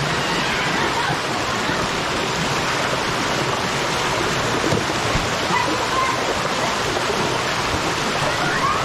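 Spring water rushing steadily over stones.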